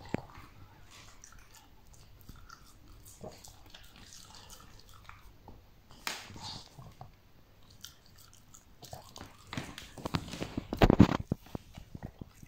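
A Shih Tzu mouthing and licking at a strawberry held in someone's fingers, with faint small clicks, then biting into it and chewing, loudest about ten to eleven seconds in.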